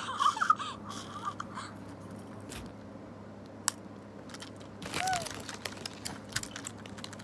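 Electronic toy pet chirping and warbling for about the first second and a half, then faint clicks and handling noise, with one more short chirp about five seconds in.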